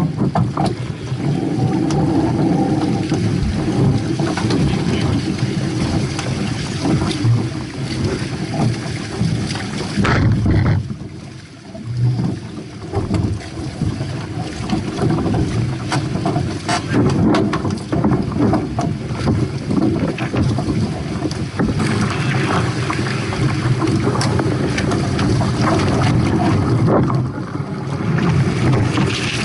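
Wind buffeting the microphone aboard a Hobie 18 catamaran under sail, over the rush of water along the hulls. The noise is loud and rough and drops away briefly about eleven seconds in.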